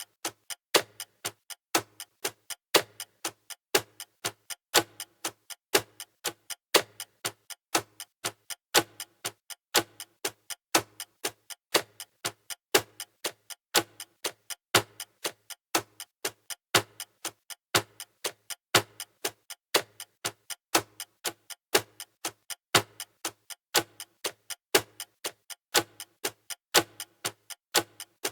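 Clock ticking steadily in an even, repeating rhythm of about two to three sharp ticks a second, with a louder tick recurring every couple of seconds.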